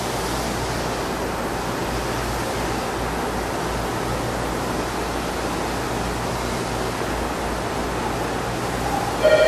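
Steady hiss with a low hum from a Klingelnberg P26 gear measuring machine running a measurement while its probe scans the gear teeth. Shortly before the end a loud, suddenly starting tone with overtones cuts in.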